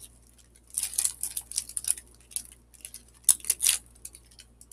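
Crinkling and rustling of Pokémon card packaging being handled, in two short bouts of crackly noise.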